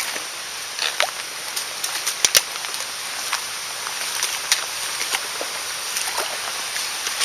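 Mountain stream flowing steadily, with scattered sharp clicks and knocks over it, the loudest pair a little over two seconds in.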